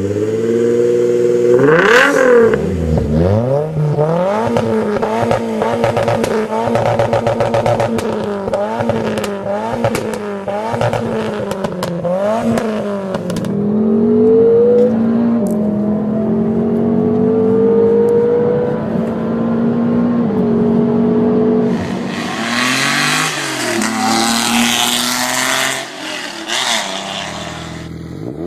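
Scion tC four-cylinder engine and exhaust being revved: a quick rise about two seconds in, then a run of short rev blips about once a second, then revs held fairly steady for several seconds. Later comes a rush of hiss, and the revs drop away near the end.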